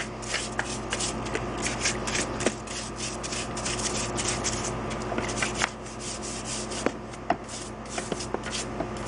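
A rust-treated steel car hood hinge being worked back and forth by hand, its freshly cleaned linkage pivots rubbing and clicking in many quick, irregular strokes. The hinge moves freely now that the surface rust is gone from between the linkages.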